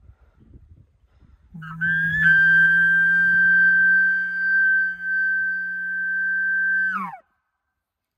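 Elk bugle call blown through a corrugated bugle tube to imitate a bull elk's locator bugle. About a second and a half in, a low note starts and jumps to a high whistle that is held steady over it for about five seconds, then the whistle falls sharply in pitch and cuts off.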